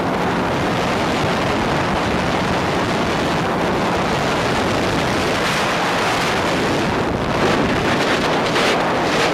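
Mekong speedboat running at speed: steady engine drone mixed with wind buffeting the microphone and water rushing past the hull, with a few sharper rushes of noise near the end.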